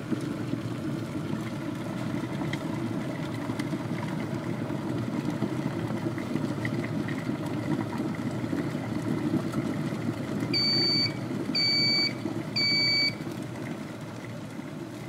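Electric kettle with a digital temperature display bringing water to a rolling boil with a steady rumble. About ten seconds in it gives three short beeps as it reaches temperature and switches off, and the rumble then dies down.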